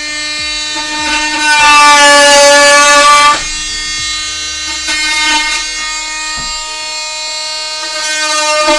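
DeWalt DCS355 18 V brushless oscillating multi-tool running, its blade cutting wood with a steady high-pitched buzz. It gets louder for about two seconds near the start, then drops back to a lighter buzz.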